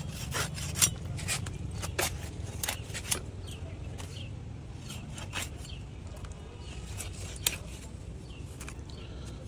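Fish being sliced by hand against a boti's fixed curved blade: a run of sharp clicks and scrapes, close together in the first three seconds and sparser after, over a steady low rumble.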